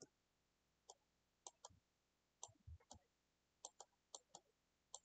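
Faint, irregular clicking of a computer mouse, a dozen or so clicks, with a few dull low thuds near the middle.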